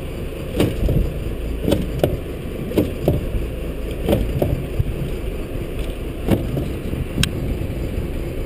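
Irregular hard knocks and thumps, about nine of them, from a freshly landed yellowfin tuna being subdued with a wooden pole in a fiberglass fish box, over a steady low rumble.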